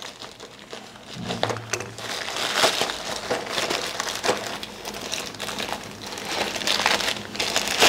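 Thin black plastic mailer bag crinkling and rustling as it is cut open and pulled off the packet inside by hand, with many small irregular crackles.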